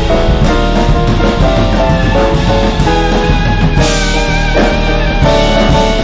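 Small jazz band playing live: electric keyboard chords over electric bass and drum kit, with a wavering high melody note held from about four seconds in.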